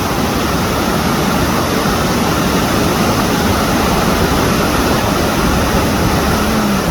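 Waterfall rushing close by: a loud, steady, even wash of falling water.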